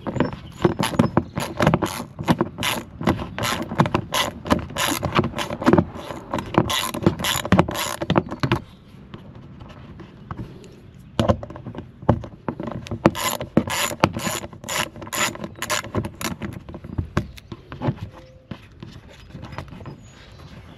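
Hand socket ratchet clicking rapidly as it backs out a bolt under a car's bumper cover. The clicks come in two long runs with a pause of about two seconds between them, then thin out to a few scattered clicks near the end as the bolt comes free.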